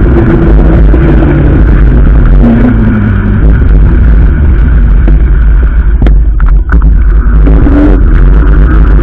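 Steady wind rumble on the microphone of a camera on a moving fat-tyre electric bike, mixed with road noise, loud throughout. A few sharp clicks come a little after the middle.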